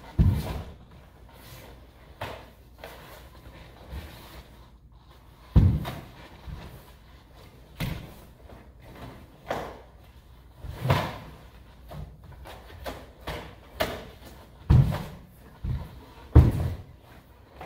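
Irregular thuds of bare feet stepping and stamping on a wooden floor, with the whoosh of a wooden bo staff cutting the air, as a bo kata is performed. About eight heavier thumps stand out, with lighter steps between them.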